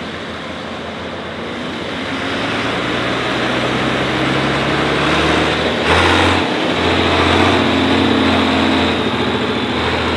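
A pulling tractor's engine running hard under load, getting louder through the first half and staying loud.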